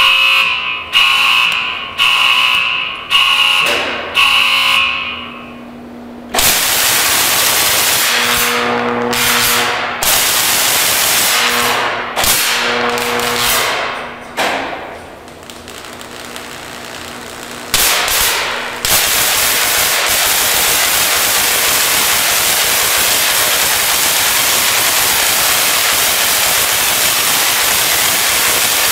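An alarm sounds five times about a second apart. Then the 75,000-volt DC supply comes on with a loud hiss and a low hum that cuts out and back in several times. About 19 seconds in it settles into a steady loud hiss as the high-voltage arc burns onto the snow globe's metal attractor.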